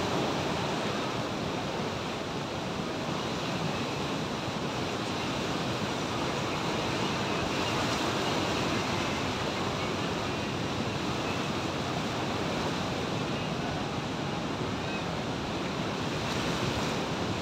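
Rough sea surf breaking against rocks on the shore: a steady, unbroken rush of waves.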